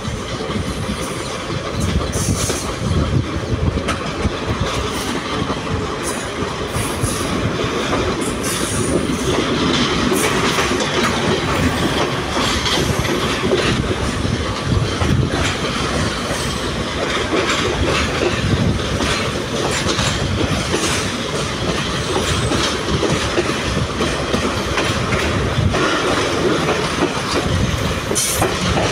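Moving passenger train heard from an open carriage doorway: a steady loud rumble of wheels on rails, with clacks here and there as the wheels pass over rail joints.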